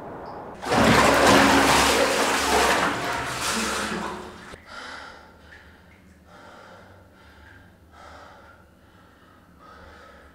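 Bathwater splashing and sloshing loudly for about four seconds as a woman comes up in a bathtub. Then her heavy, gasping breaths follow, about one a second.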